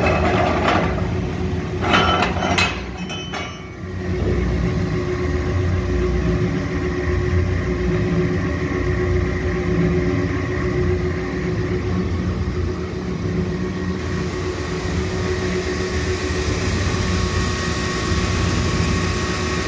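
Hollymatic 180-A mixer grinder running steadily, a constant hum from its electric drive motor and gearing with a steady tone. Knocks and rattles from the grind head being handled come in the first few seconds.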